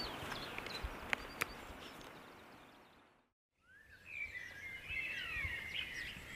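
Outdoor ambience with a steady hiss and a couple of sharp clicks, fading out to a moment of silence about halfway through. Then several birds singing, with quick rising and falling whistles and chirps.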